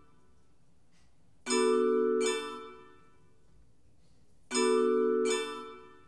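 Vibraphone struck with soft yarn mallets: a pair of ringing chords about three-quarters of a second apart, then another pair about three seconds later, each chord ringing on and fading away over a second or so.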